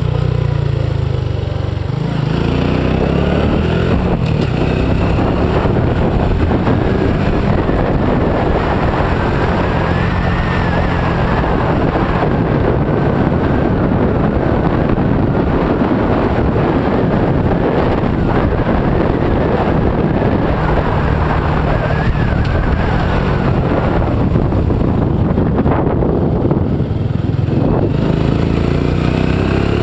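Engine of a heavily loaded Honda Innova 125 motorcycle, a small single-cylinder four-stroke, running under way. Its pitch rises and falls with the throttle through the bends.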